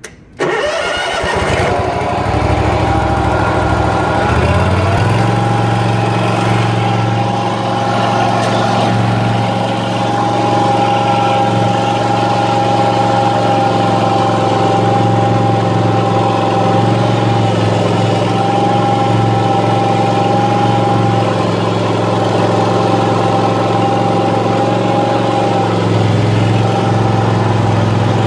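2012 Bob-Cat ProCat 61-inch zero-turn mower's engine starting within the first second, picking up speed over the next few seconds, then running steadily.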